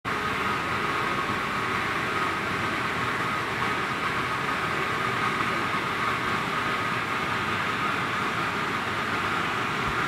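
Packaged steam boiler plant running: a loud, steady machinery noise that holds even throughout, with no knocks or breaks.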